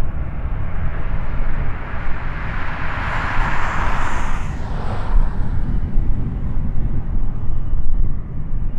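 Lockheed ER-2's single General Electric F118 turbofan running at low taxi power as the aircraft rolls slowly along the runway. A jet rush swells about three seconds in and fades by about five seconds, over a steady deep rumble.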